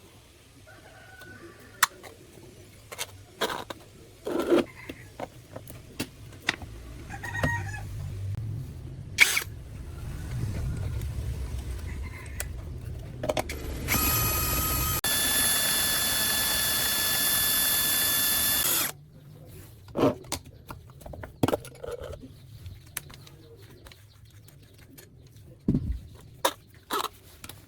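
Workshop handling noises, scattered knocks and clicks, and an electric power tool running steadily for about five seconds near the middle with a high whine, starting and stopping abruptly.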